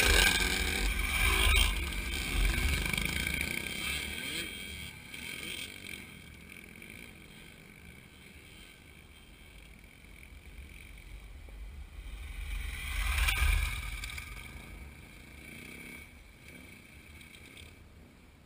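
Dirt bike engines passing close by: one goes by loud right beside the start and fades into the distance over several seconds, then another engine sound swells and fades about thirteen seconds in.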